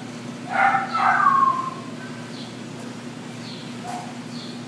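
German Shepherd dog giving a high whine that falls in pitch, starting about half a second in and lasting about a second, over a steady low hum.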